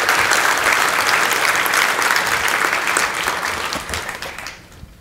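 Audience applauding in a large hall after a talk ends, a dense steady clapping that thins out and dies away about four and a half seconds in.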